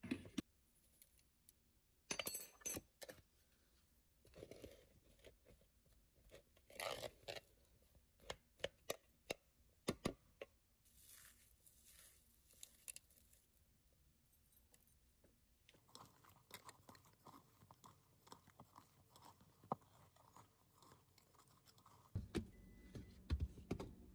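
Faint, scattered taps, scrapes and crunches of food being handled in a bowl of mashed potato as spices and cilantro go in. A low steady hum comes in near the end.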